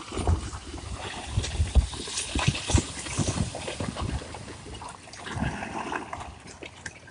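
Landslide: rocks and earth crashing down a hillside, an irregular run of heavy thuds and cracks over a rushing noise.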